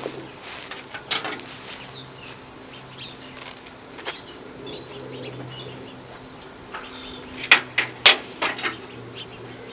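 Gear being handled and set down: several sharp knocks and clatter, the loudest two about three quarters of the way through. Small birds chirp now and then, over a faint low hum that comes and goes.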